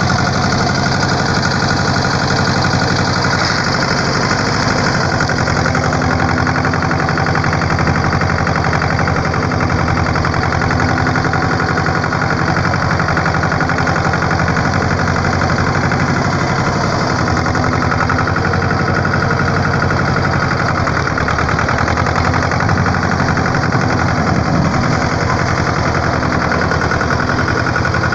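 A motor vehicle's engine running steadily under a broad hiss, with small shifts in pitch.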